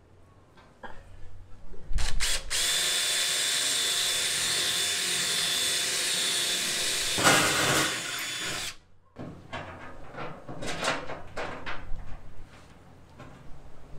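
Cordless drill running steadily for about six seconds, starting a couple of seconds in and stopping abruptly. It is followed by scattered light clicks and knocks of tools and parts being handled.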